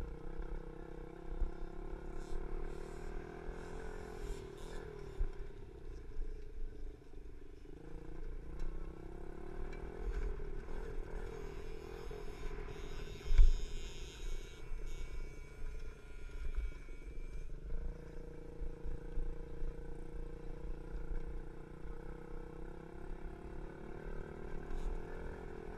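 A 50cc four-stroke pee wee dirt bike engine running under way, its pitch rising and falling several times as the throttle opens and closes, with wind rumbling on the microphone. A single sharp thump about halfway through.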